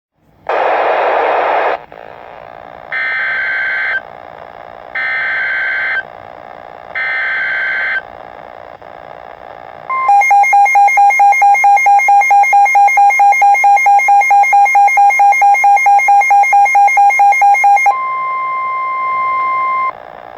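Emergency Alert System weather-radio alert tones. A short burst of noise comes first, then three buzzy one-second data bursts about a second apart. A rapidly pulsing alarm tone runs for about eight seconds and gives way to a steady alert tone for about two seconds before the tornado warning.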